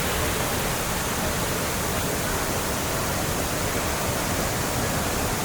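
Waterfall's steady rush of falling water, an even roar with no breaks.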